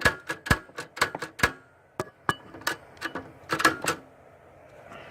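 1937 L C Smith & Corona manual typewriter clacking as its keys and mechanism are struck: a quick run of sharp clacks, a few single ones, another short burst, then quiet for the last second.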